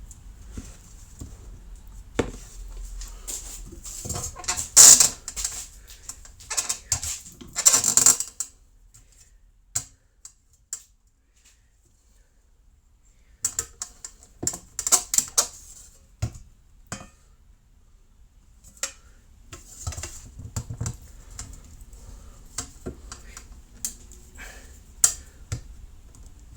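Irregular metallic clinks, knocks and rattles of brass trumpet parts and tools being handled, with a quiet pause from about nine to thirteen seconds in.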